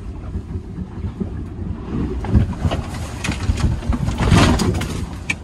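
Seas washing over a sailboat's deck and portlight in rough water, heard from inside the cabin: a steady low rumble with louder rushing surges about two seconds in and again near four seconds.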